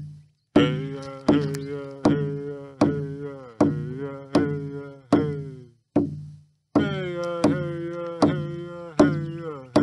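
Large hand-held frame drum struck with a padded beater in a steady slow beat, a little over one stroke a second. Each stroke rings on with a low hum and overtones that sag slightly in pitch and fade. The beat breaks off briefly just past the middle, then resumes.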